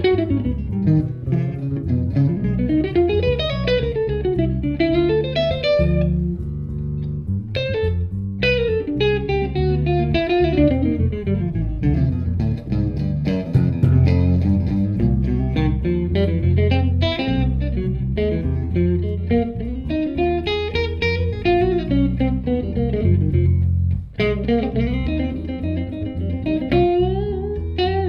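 Electric guitar playing a single-note jazz solo of quick runs and bent notes over a bass guitar line; no saxophone.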